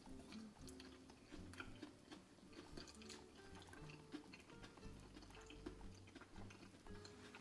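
Faint background music with a few light clicks.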